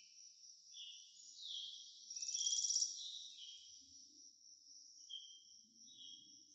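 Birds and insects chirping: a steady high trilling drone with repeated short falling chirps, and a louder rapid trill about two seconds in.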